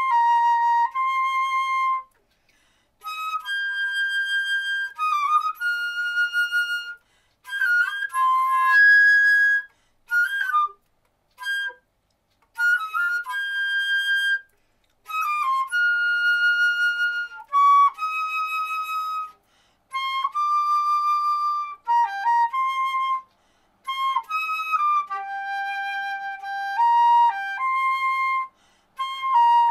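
Solo concert flute playing a slow melody of held notes, mostly in the upper register, in phrases with short pauses between them and a few short detached notes partway through.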